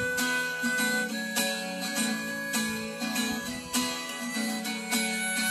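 Acoustic guitar strummed in slow, even strokes, with a harmonica holding long steady notes over it; instrumental playing with no singing.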